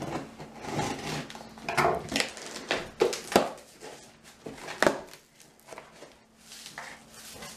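Cardboard shipping box being opened by hand: flaps pulled up and cardboard scraping and rustling, with a few sharp knocks.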